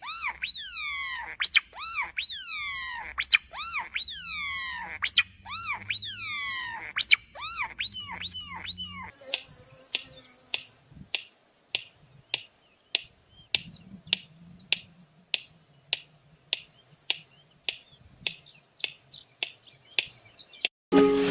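Birds giving repeated sweeping chirps, about two a second. About nine seconds in they give way to a steady high-pitched buzz with regular ticks about two a second, which stops suddenly near the end.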